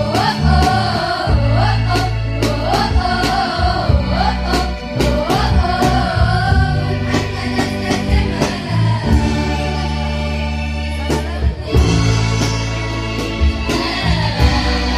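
A girls' choir singing a song with a live band of drum kit, keyboard and guitars. The voices glide through the melody in the first half and hold longer notes later, over a steady drum beat and a strong bass line.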